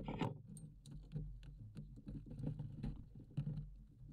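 A just-landed speckled trout flopping on the boat deck: a quick, irregular run of thumps and slaps.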